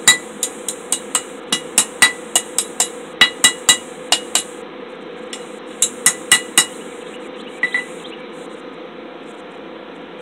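Hand hammer striking a glowing quarter-inch steel rod on an anvil, bending it down over the edge. A quick run of ringing blows lasts about four seconds, four more follow a second and a half later, then two light taps.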